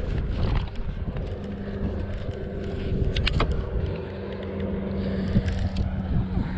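Steady low hum of a bass boat's electric trolling motor, with wind buffeting the microphone. A few sharp clicks about three seconds in.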